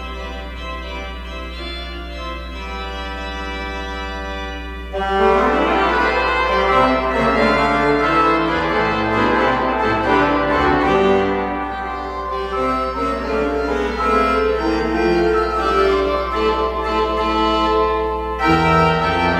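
Church organ playing: a soft held chord, then about five seconds in it swells louder with many moving notes over sustained harmony.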